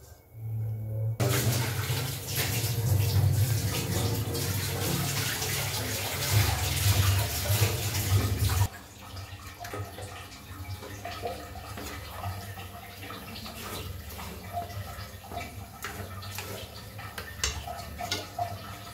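A loud steady hiss starts about a second in and cuts off suddenly after about seven seconds. Then thick chicken curry is stirred in a kadai, with light clicks and scrapes.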